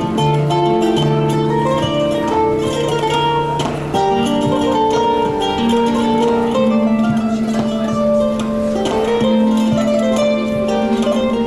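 Background instrumental music: a melody of held notes, steady throughout.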